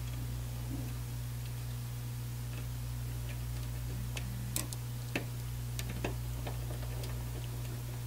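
Small, irregular clicks and taps of a servo motor's power cable and ground wire being handled and fitted to a servo drive, over a steady low hum.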